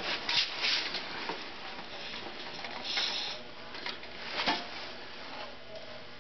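Hands working at a snowthrower's drive belt and pulley, handling a thin wire: irregular scraping and rustling with a few light clicks, loudest about half a second in, around three seconds and around four and a half seconds.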